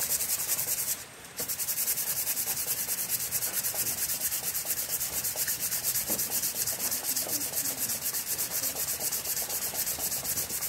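A round part from an electric water pump is rubbed by hand against sandpaper in rapid back-and-forth strokes, with a brief pause about a second in. The part is being sanded until it is clean and flat.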